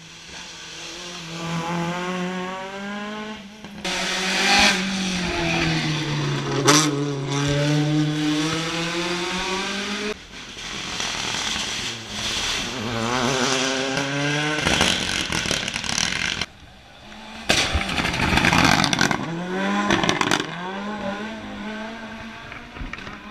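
Hillclimb race car engines at full throttle, revving up and dropping back at each gear change, with abrupt cuts from one car's run to the next.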